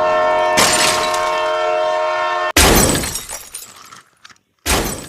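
Train horn sound effect sounding one steady chord, joined by a rushing noise about half a second in. Halfway through it cuts off into a loud crash with breaking and shattering that dies away, and a second, shorter crash follows near the end.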